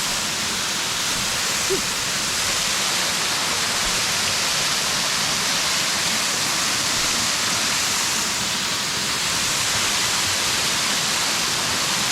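Steady, loud rush of flowing water, an even hiss without pauses or changes.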